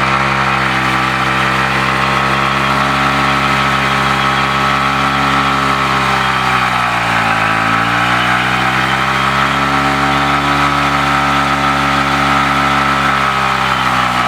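Yamaha MT-15's single-cylinder engine running at a steady speed; its note drops briefly about halfway through and picks back up.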